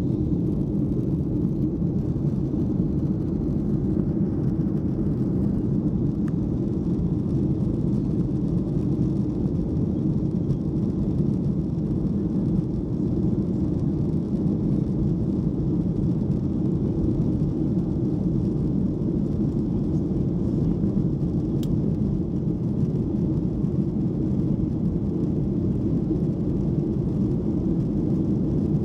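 Steady rumble of a Boeing 737-900's CFM56-7B engines and airflow heard inside the passenger cabin during the climb after takeoff. It stays even throughout, deep and without breaks.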